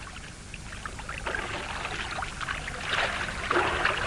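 Water splashing in a shallow rocky stream, as someone wades through it: irregular splashes that start about a second in and grow louder toward the end.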